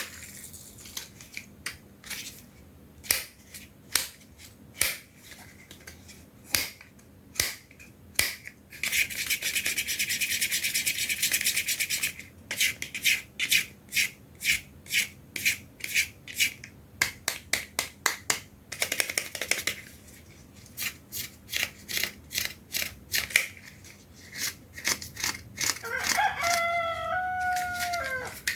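Hard plastic toys clicking and clacking against each other, with about three seconds of fast, dense rattling about nine seconds in. Near the end a short pitched sound steps down in pitch twice.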